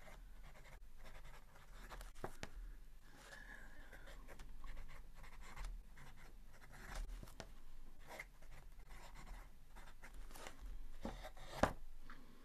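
Fountain pen nib scratching on paper as words are written by hand, in short strokes with small ticks as the pen lifts and touches down. A sharper click near the end.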